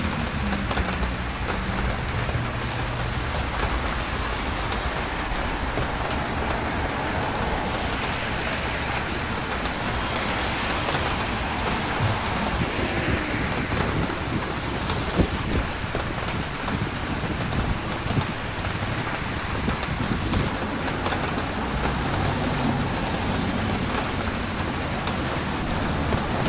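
Steady rain on a wet city street: a constant hiss of rain and tyres on wet pavement over the low rumble of passing traffic, with a couple of short sharp ticks midway.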